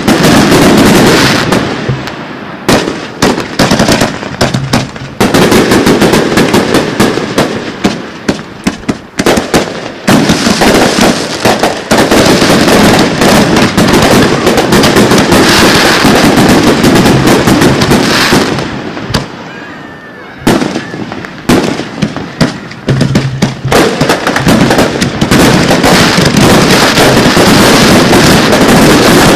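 Fireworks finale barrage: aerial shells bursting in rapid, overlapping reports with crackle, very loud and nearly continuous. The bursts thin out briefly about two-thirds of the way through, then resume just as dense.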